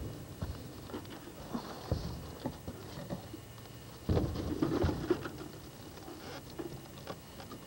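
Irregular scuffs, taps and knocks of shoes and hands on rough concrete as someone clambers, with a louder cluster of scraping and knocking about four seconds in.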